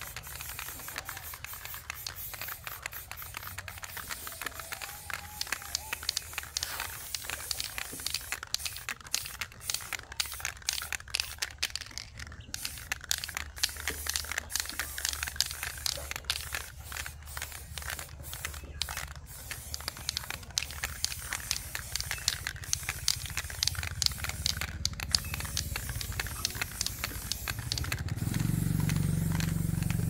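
Aerosol spray paint can hissing as it sprays, with a few short breaks. A low rumble comes in near the end.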